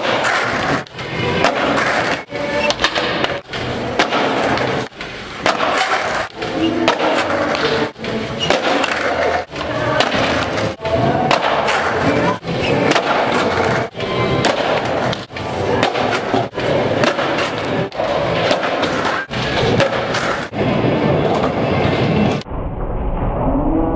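Music with a steady beat, mixed with a skateboard rolling and clattering. Near the end the sound suddenly turns muffled.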